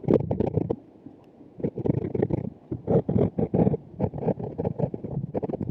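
Drawing directly on a microphone: close, scratchy scraping in quick strokes, in groups with a pause of about a second shortly after the start.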